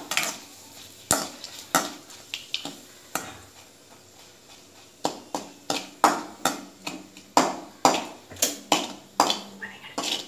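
Slotted metal spatula knocking and scraping against a metal kadai while stirring dried red chillies and curry leaves frying in oil for a tempering. There are a few sparse knocks at first, then a steady run of about two knocks a second from about halfway through.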